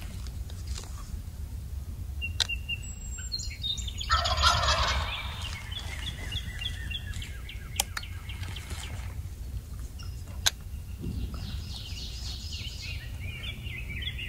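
Wild turkey tom gobbling once, a loud rattling call about four seconds in, with higher bird chirps scattered around it and a few sharp clicks over a steady low rumble.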